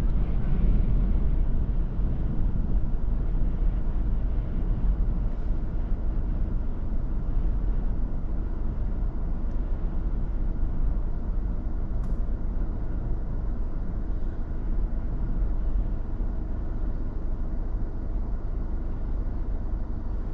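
Steady low rumble of gusty wind buffeting a parked vehicle and the microphone. It is the kind of wind that marks the start of a haboob or a strong rear-flank downdraft.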